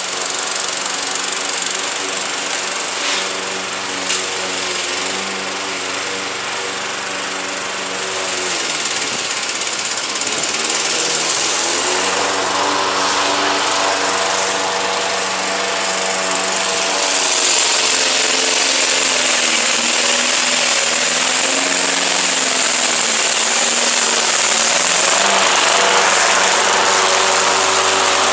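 Craftsman 21-inch push mower's Briggs & Stratton 550 series 140cc engine running steadily while cutting thick, overgrown grass. Its pitch dips briefly twice as the engine takes the load of the thick grass, and it grows louder as the mower comes close in the second half.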